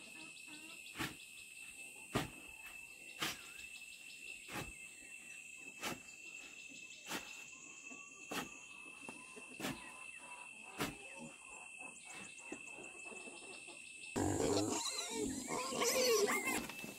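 Evenly spaced single chopping strokes, about one every 1.2 seconds, over a steady high drone of insects. About 14 seconds in, a louder, rough, irregular animal-like noise takes over.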